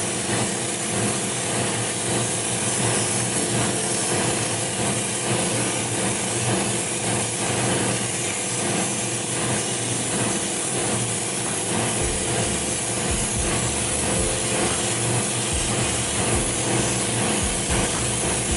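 Spray booth extractor fan running steadily with a hum, together with the hiss of an airbrush spraying a mist coat of acrylic primer onto a resin model car body.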